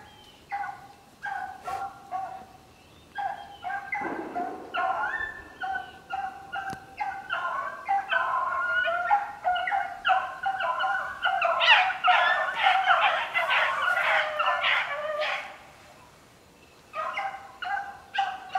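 A pack of rabbit hounds baying on a rabbit's trail: short, repeated bawls at first, building into several dogs giving voice together from about eight seconds in. The chorus breaks off for a second or two near the end, then starts again.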